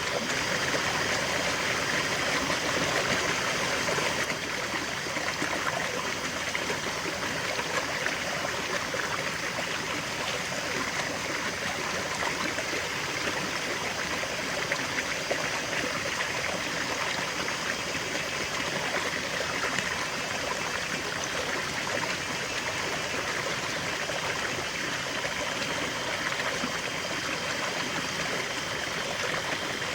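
River water flowing and babbling steadily over stones.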